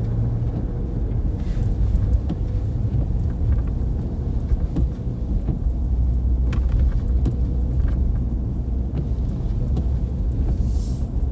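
Steady low rumble of a car driving, heard from inside the cabin: engine and tyre noise, with a few faint ticks and swishes.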